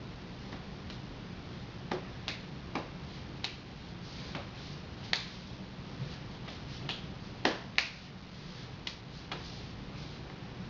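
Sharp, irregular slaps of hands striking hands and forearms during fast empty-hand martial arts drills, about nine in all, the loudest near the middle and two-thirds through, over a low steady hum.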